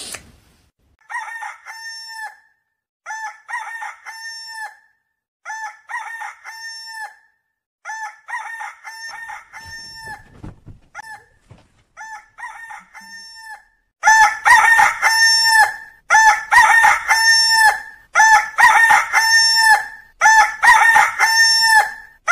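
Rooster-crow alarm tone going off, the same crow repeating about once every two seconds. It is fainter at first, then much louder from about two-thirds of the way in.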